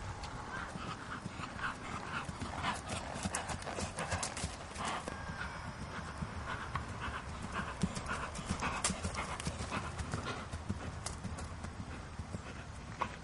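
Hoofbeats of a ridden Haflinger horse moving over grass turf, a continuous run of footfalls.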